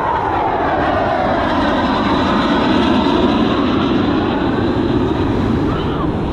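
Fighter jet flying past, its loud engine noise falling in pitch as it passes and fading out near the end.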